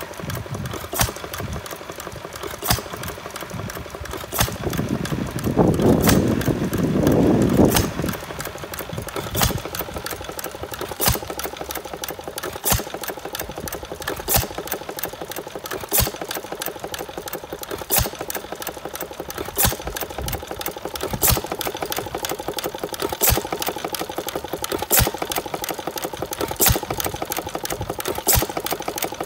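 1910 Brownwall 1 hp air-cooled hit-and-miss engine running unloaded, a sharp bang about every second and a half to two seconds as it fires, with a fast light clatter between while it coasts on its flywheels. A louder rushing noise swells about five seconds in and lasts a couple of seconds.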